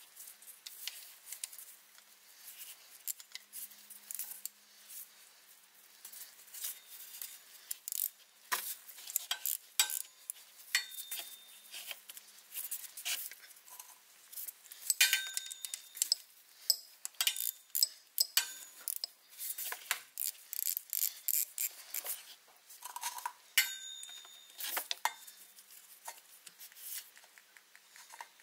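Irregular metallic clinks and clicks of hand tools working at the transfer case's plugs, a few of them ringing briefly.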